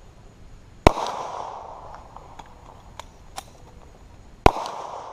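Two shots from a 9mm pistol, about 0.9 s and 4.5 s in, each a sharp crack followed by about a second of echo off the range, with a few faint ticks between them.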